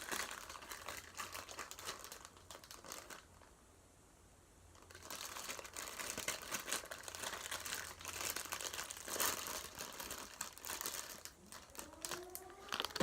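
Crunchy slime being squeezed and worked by hand, making dense crackling and popping, with a pause of about two seconds a little after three seconds in.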